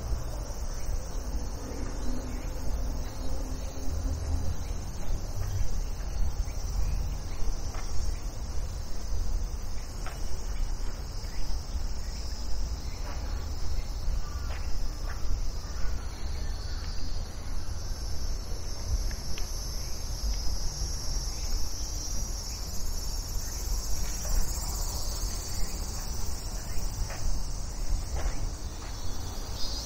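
Steady high-pitched chorus of insects singing in garden trees, a continuous shrill drone that grows somewhat louder past the middle, over a steady low rumble.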